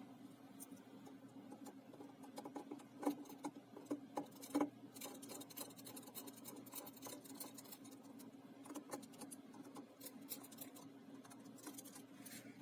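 Faint, scattered small clicks and scrapes of a small screwdriver working the tiny Phillips screws of a plastic smartwatch case, with a couple of sharper clicks about three and four and a half seconds in, over a steady low hum.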